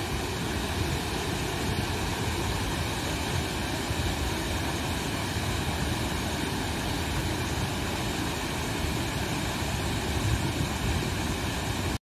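Steady rush of a waterfall, several streams of water falling over a rock ledge into a pool.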